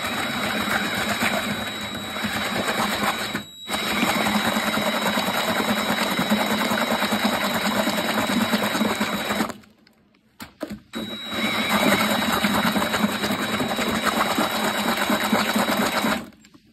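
Cordless DeWalt drill spinning a paddle mixer through wet mortar, run in trigger bursts: a brief stop about three and a half seconds in, a pause with two quick blips a little past halfway, then a steady run that stops near the end.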